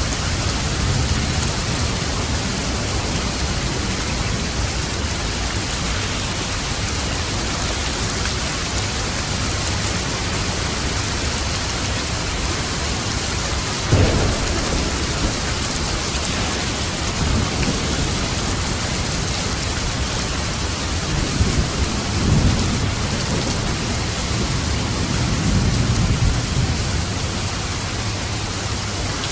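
Steady rain with thunder: a sudden clap about halfway through, then low rolling rumbles near the end.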